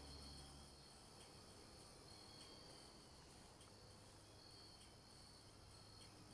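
Near silence outdoors, with faint, steady insects chirping high in pitch.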